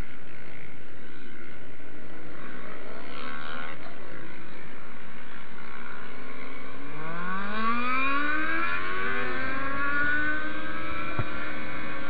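Motorcycle engine accelerating: about seven seconds in the revs climb steeply, climb again after a gear change, then hold high and steady, over a steady rushing noise.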